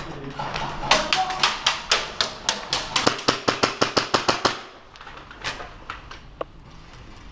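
Airsoft gun firing a rapid string of shots, about six or seven a second, for roughly three and a half seconds, followed by a couple of single shots.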